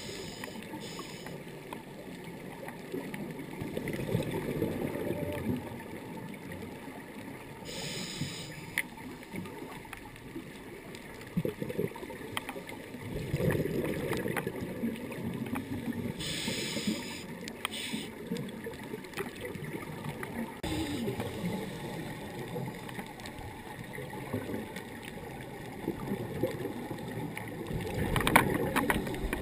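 A scuba diver breathing through a regulator, heard underwater through the camera housing: a short hiss on each in-breath and a muffled bubbling rush on each out-breath, coming round every eight or nine seconds.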